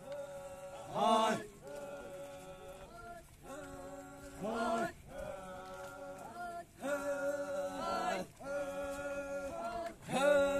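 Group of men singing a traditional Chakhesang Naga processional chant in unison: long held notes, broken every few seconds by a louder call that swoops up and falls away.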